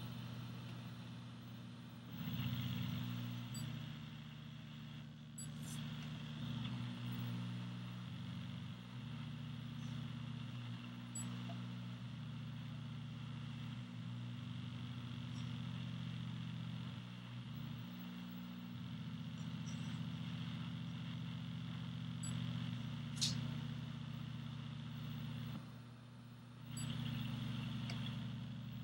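A low steady rumble with a faint hiss over it, dipping briefly twice, and one short sharp high sound late on.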